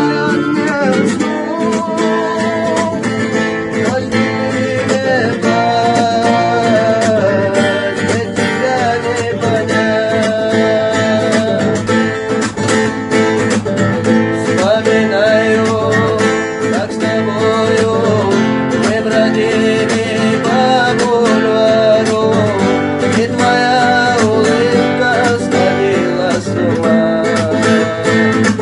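Acoustic guitar music: a melody line played over strummed chords.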